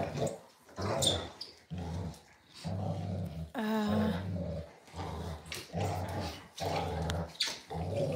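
Two dogs, a German shepherd and a golden retriever, growling in play while tugging on a ring toy, in short low growls about once a second. A brief higher-pitched whine comes a little under four seconds in.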